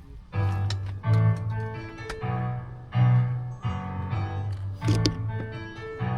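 Music led by piano or keyboard over a strong bass line, coming in about half a second in with notes struck at a steady pace.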